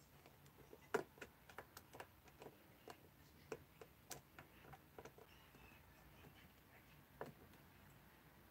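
Faint, irregular small clicks and ticks of a screwdriver working at the metal coil deck of a rebuildable vape atomizer, with the sharpest click about a second in and another near the end.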